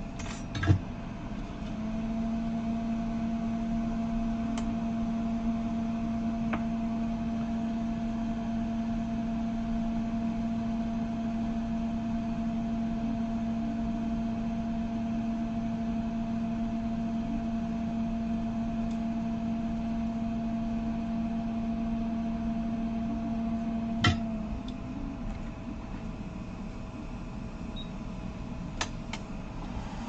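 A steady electrical hum from a bench machine, switched on with a sharp click near the start and shut off with another click about 23 seconds later, its tone sagging briefly as it stops; a low steady background noise and a few faint clicks remain.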